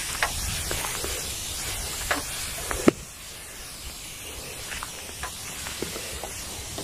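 Weedkiller spray hissing from the nozzle of a sprayer wand, with scattered light clicks. A sharp click about three seconds in, after which the hiss is quieter.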